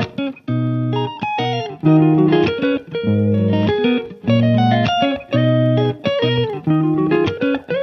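Background music: rhythmic guitar with plucked and strummed chords over a bass line.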